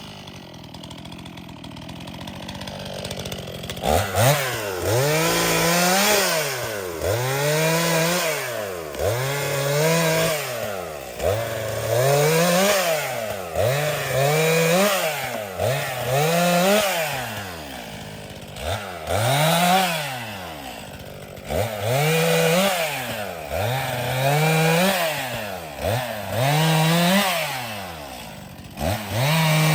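Stihl MS261 C-M two-stroke chainsaw revving up, holding and dropping back about every two seconds, over and over, as it makes short bucking cuts through firewood. It starts from a lower, falling engine note, and the repeated revving begins about four seconds in.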